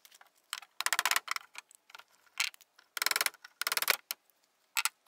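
Soft-faced rubber-and-plastic mallet tapping on a wooden buffer block held against an old desk's side panel, in about five quick runs of light taps about a second apart, to knock a loose joint apart.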